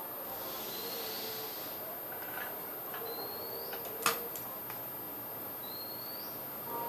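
A short, high, rising chirp repeating about every two and a half seconds, and a sharp click about four seconds in as wires are handled over the panel.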